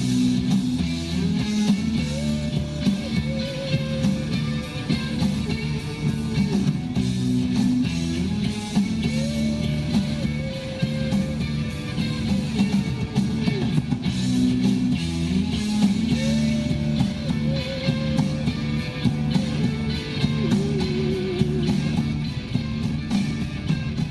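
Background music: a guitar-led track with a steady beat and a melody that repeats in phrases.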